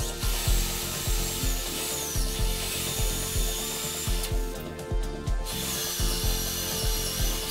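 Corded electric drill boring holes into a hardwood handrail, its high motor whine rising and falling with the trigger and stopping briefly about halfway. Background music with a steady beat plays underneath.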